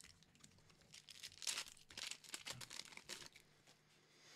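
A Pokémon Battle Styles foil booster pack being torn open. Its wrapper crinkles and crackles for about two seconds, starting about a second in.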